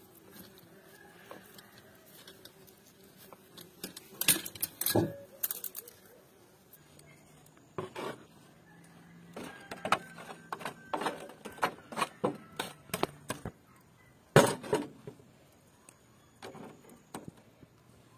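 Metal kebab skewers clinking and clanking against a steel tray and a steel charcoal grill, in irregular clusters of sharp metallic knocks. One clank near the three-quarter mark is the loudest.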